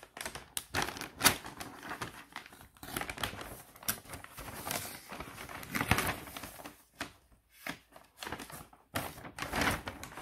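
Brown paper takeaway bag being handled and pulled open by hand, the paper crinkling and rustling in irregular bursts with sharp crackles and a couple of short pauses.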